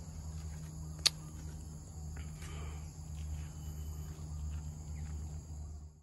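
Insects chirring steadily in garden trees, several high unbroken tones held throughout, over a low steady hum. A single sharp click about a second in.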